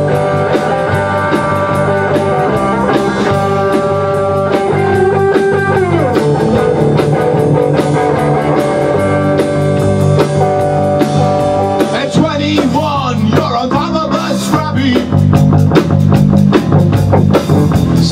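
Live rock band playing an instrumental passage: two electric guitars over a drum kit, with a guitar sliding and bending notes. The playing gets busier and a little louder about twelve seconds in.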